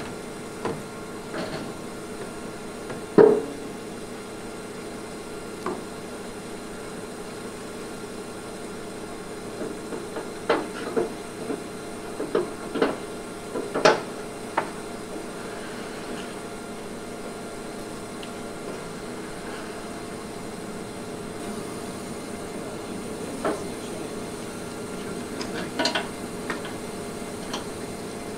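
Volumetric concrete mixer truck running steadily, with scattered sharp clanks and knocks as its steel discharge chute is worked, the loudest about three seconds in and a cluster of them around the middle.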